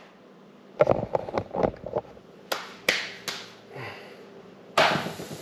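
Several light taps and clicks as the arepa dough is handled. About five seconds in, a sudden sizzle starts as the arepa goes into a hot pan of butter and keeps hissing steadily.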